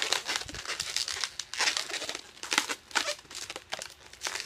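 Inflated latex 260 twisting balloon being handled and twisted, rubbing and squeaking against the hands and against itself in quick, irregular strokes.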